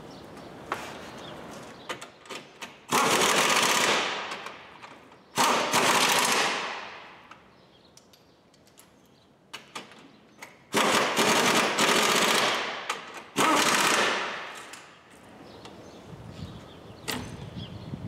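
Power impact driver run in four short bursts of rapid hammering, each about a second long and dying away, fastening the replacement condenser fan in place. Small clicks and knocks of handling come between the bursts.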